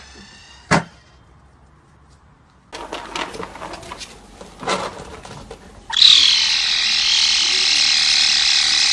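Caracal kitten giving one long, loud hiss with a screeching edge, lasting nearly four seconds from about six seconds in. Earlier there is a single sharp click just under a second in.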